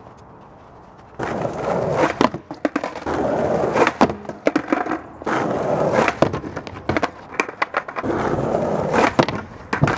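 Skateboard wheels rolling in several stretches of about a second each, starting about a second in. Sharp wooden clacks of the board popping and landing break up the rolling.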